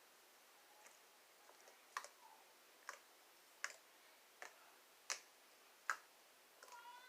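Slime being pressed and making sharp clicking pops, six clicks a little under a second apart.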